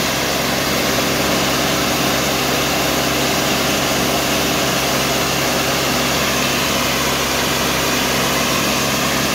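Band sawmill's engine running steadily under load while its carbide-tipped band blade cuts lengthwise through a log.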